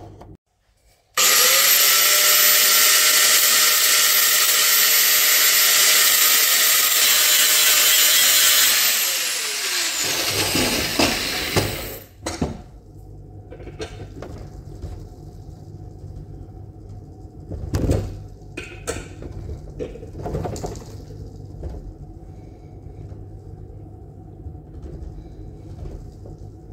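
Power grinder grinding down the corners of a metal hex tool piece to give it a square shape. It starts suddenly about a second in, runs loud and steady, and is switched off near the middle, its whine falling as the wheel spins down. Quieter clicks and knocks of the part being handled follow.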